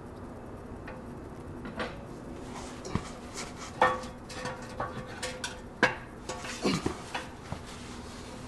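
Steel exhaust pipe sections knocking and clanking together as they are handled and test-fitted: a series of irregular metallic knocks, several ringing briefly afterwards, the loudest about four and six seconds in.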